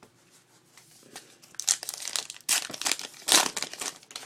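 Wrapper of a pack of baseball cards being torn open and crinkled, in several rustling bursts; the loudest comes about three and a half seconds in.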